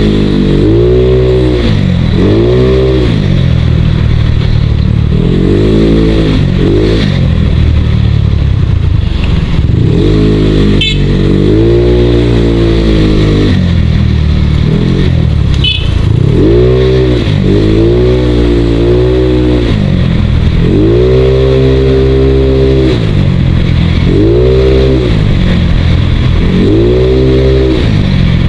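Motorcycle engine revving up and easing off again and again while riding, its pitch rising and falling every couple of seconds over a steady low rumble of wind and road.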